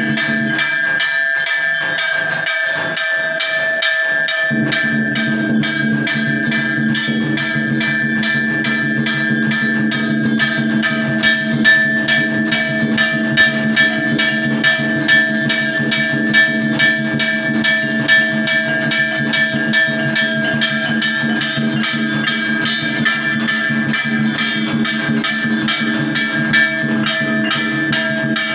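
Hindu temple aarti: bells and percussion struck in a fast, steady rhythm over steady droning tones. The low drone drops out briefly in the first few seconds, then returns.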